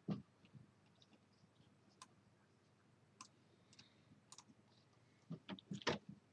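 Faint scattered clicks over near-silent room tone, a second or so apart, with a cluster of louder, lower knocks near the end.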